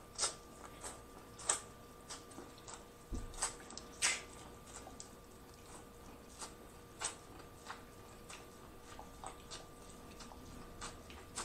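Close-miked eating of corn on the cob: sharp, irregular clicks and crunches as kernels are bitten off the cob, roughly one to two a second, over a faint steady hum.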